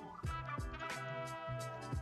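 Quiet background music with sustained held notes.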